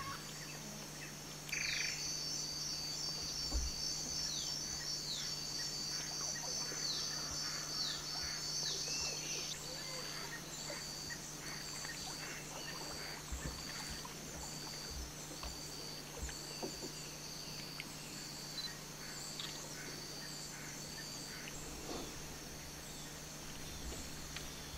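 Amazon rainforest dawn chorus: a steady high-pitched drone of insects, with short falling whistled calls in the first third and a call repeating a little more than once a second through the middle. A low steady hum runs underneath.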